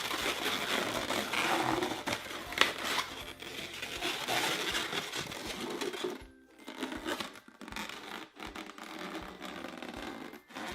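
Inflated latex 260 modelling balloons rubbing and scratching against each other as they are handled and twisted together, with scattered small clicks and a brief lull about six seconds in.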